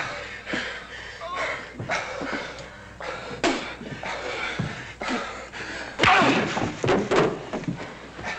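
Two men brawling against a wooden bar: a string of thuds and slams as bodies and fists hit the counter, with grunts of effort. The heaviest blows come about six and seven seconds in.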